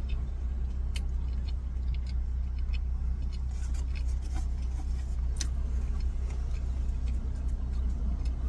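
Steady low hum of an idling car engine heard from inside the cabin, with a few faint clicks from chewing.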